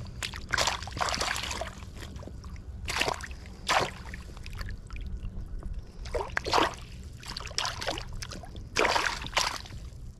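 Lake water splashing and sloshing in a landing net as a netted rainbow trout is handled in the water, in about five short bursts over a steady low rumble.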